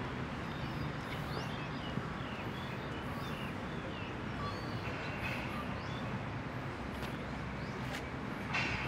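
Birds chirping, with short rising and falling calls scattered throughout, over a steady low background hum.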